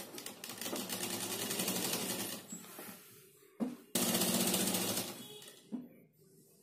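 Domestic sewing machine stitching a seam in two runs of rapid, even needle strokes, the second starting about four seconds in, with a short knock between them.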